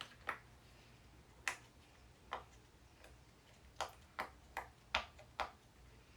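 Bubbles of a silicone pop-it fidget toy being pressed one by one: about eight soft popping clicks at an uneven pace, coming faster in the second half.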